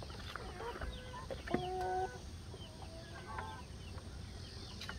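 White chicken caught in chicken-wire mesh, calling a few times; the longest call, about a second and a half in, is held for about half a second, and a shorter one follows near the middle.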